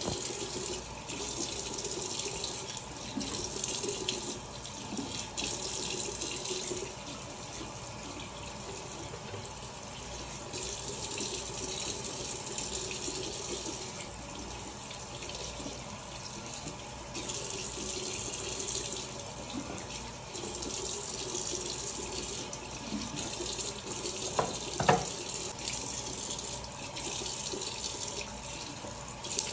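Bathroom sink faucet running steadily while hands splash and scoop the water to rinse a scrub mask off the face. A short, louder thump near the end.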